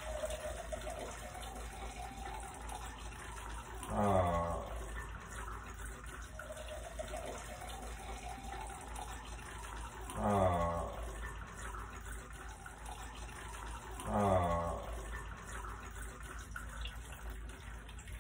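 A cocktail poured from a cocktail shaker into a glass, a steady trickling pour whose tone rises slowly as the glass fills. Three short, louder sounds that slide down in pitch break in at about 4, 10 and 14 seconds.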